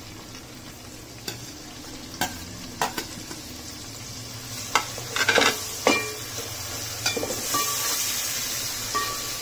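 Sliced onions frying in hot oil in a pan, stirred with a spoon that knocks and scrapes against the pan several times. The sizzle grows louder in the second half.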